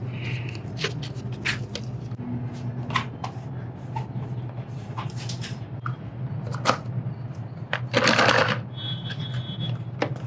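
Cardboard packaging being handled: scattered clicks and scratches as the seal on a small watch box is cut, then a longer, louder rustle about eight seconds in as the box is opened. A steady low hum runs underneath.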